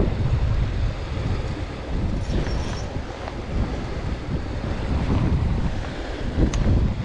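Wind buffeting the microphone in uneven gusts over a steady rush of river water, with one sharp click near the end.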